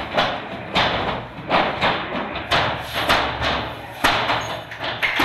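Repeated thuds of hands pounding on a glass-paned door, about two blows a second and slightly uneven.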